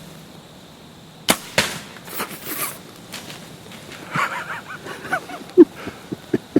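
A bow shot: a sharp snap as the arrow is released, a second crack a moment later as it strikes, then scattered rustling and snapping.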